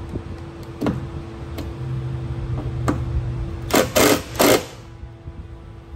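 Cordless impact driver running bolts into an exhaust outlet flange: a steady motor whine as a bolt spins in, then three short, loud bursts of hammering close together about four seconds in as it tightens down.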